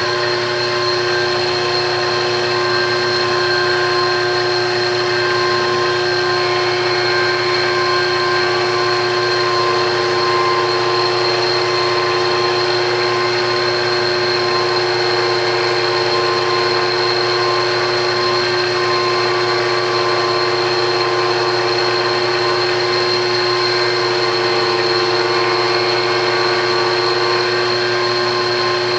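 Belt-driven horizontal cutting frame on an MDF rose engine lathe, its small drive motor and spinning cutter switched on and running at a steady, unchanging pitch with a high whine. The cutter is cutting a rosette pattern into the end of a softwood workpiece.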